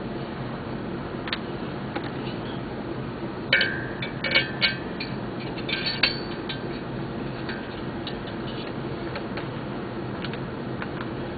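Metal hand tools and engine parts clinking and tapping, a handful of irregular knocks bunched together a few seconds in, some ringing briefly, over steady low background noise.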